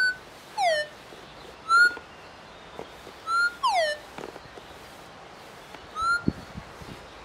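QED pulse-induction metal detector giving its target signal as the coil sweeps over a 1 gram gold piece through heavily mineralised soil: short gliding tones in high-then-low pairs, repeated with each pass. The high-low pattern marks a small gold piece, which on this detector turns to low-high at about 2 to 3 grams.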